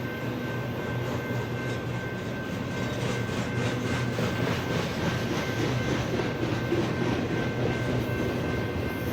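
BNSF intermodal freight train rolling past: a steady rumble of wheels on rail, with a repeated clacking through the middle.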